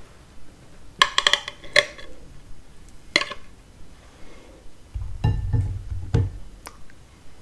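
A metal cake server clinks and scrapes against a glass cake stand while layered Napoleon cake is cut and lifted: a quick cluster of ringing clinks about a second in, another single clink near three seconds. Around five to six seconds in comes a duller knock with more clinks as the piece is set down on a plate.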